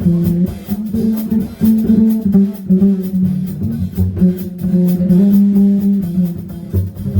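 A small jazz combo of guitar, bass, drum kit, saxophone and keyboard playing a jazz standard at a steady swing, with guitar and bass prominent over the drums.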